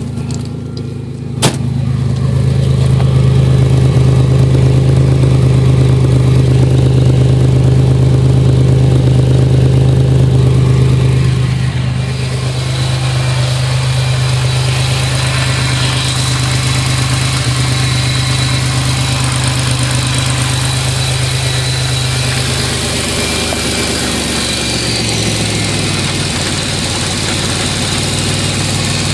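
Car engine idling warm, an engine whose owner reports a misfire when it is warmed up. A sharp click comes about a second and a half in, then a steady low engine hum whose pitch drops a little near the end.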